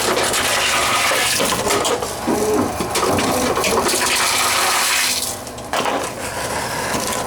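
Tomra reverse vending machine taking in plastic bottles, a loud steady rushing noise that drops out briefly about five seconds in and then starts again.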